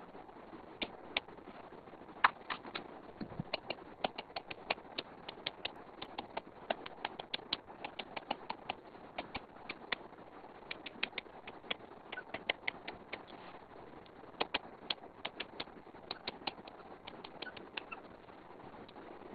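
Stylus tip tapping on a tablet's glass screen during handwriting: irregular sharp clicks, several a second, over a faint hiss.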